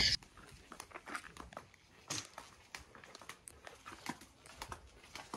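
Faint crinkling and rustling with many scattered small clicks and knocks.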